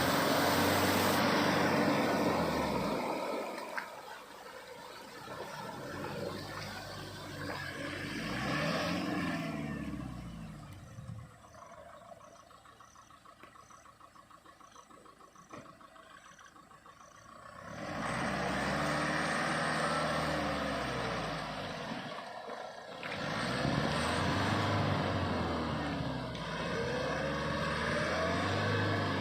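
Mahindra Scorpio-N 4x4's diesel engine working off-road, its revs rising and falling several times, with a quieter lull in the middle.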